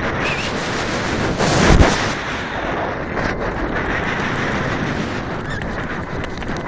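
Wind rushing and buffeting over the microphone of a camera carried by a falcon in flight, with a louder blast about a second and a half in.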